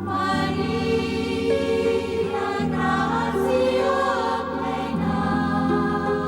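Sacred choral music: a choir singing held chords that change every second or two.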